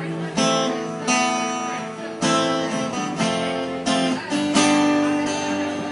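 Acoustic guitar strumming chords, a strum about every second, each ringing out and fading before the next, with no singing.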